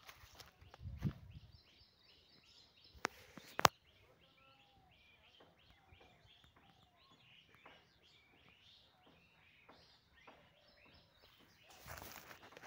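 Faint outdoor field ambience with small birds chirping over and over in short high notes. Two sharp clicks about three seconds in are the loudest sounds, and a rustle of grass comes near the end as the phone is lowered into the weeds.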